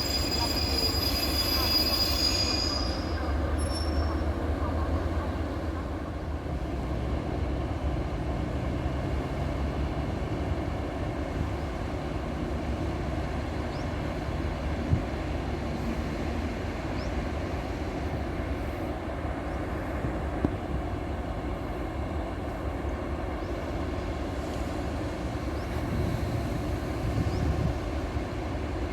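Train hauled by an Alsthom diesel locomotive, running with a steady low rumble; high squealing tones from the wheels fade out in the first few seconds. Two short clicks come around the middle.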